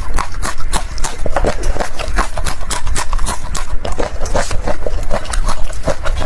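Close-miked eating: rapid, wet chewing and mouth-smacking clicks, several a second, over a low steady hum.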